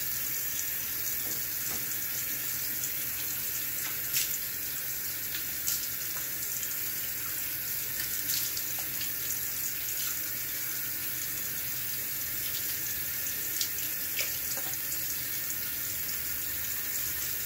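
Tap running steadily into a sink as face and neck are rinsed by hand, with a few brief splashes.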